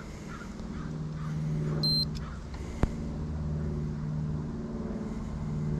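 Steady low machine hum with a few overtones, with one short high electronic beep about two seconds in and a sharp click just before the three-second mark.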